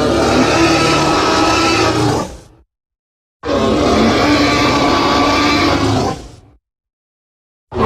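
Two long creature calls from a custom Thanator sound effect, mixed from animal and creature recordings. The first lasts about two and a half seconds and the second starts about a second later and lasts about three; each tails off into dead silence.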